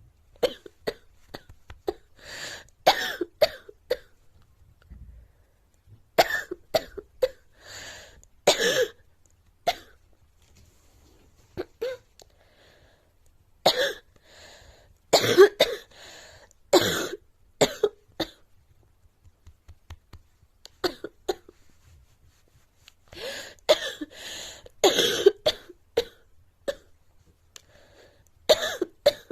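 A girl coughing in repeated bouts, each a quick run of short, sharp coughs, with pauses of a second or two between the bouts.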